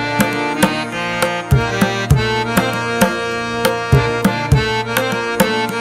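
Background instrumental music: sustained melodic notes over a steady percussion beat.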